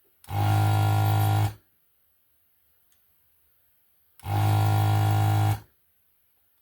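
Desoldering station's vacuum pump switched on twice, each time a steady buzzing hum lasting about a second and a half, sucking molten solder from the LCD's pins.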